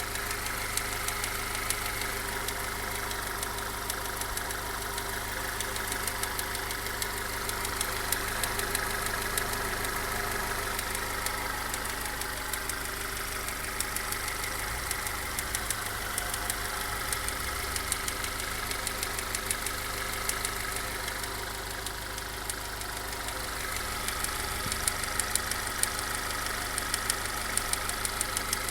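The 1996 Honda CR-V's B20B 2.0-litre four-cylinder engine idling steadily, with a fast, even ticking knock from the cylinder head.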